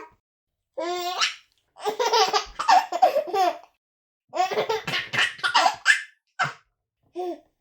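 A baby laughing in three bursts of rapid, high-pitched laughter separated by short pauses, followed by two brief laughs near the end.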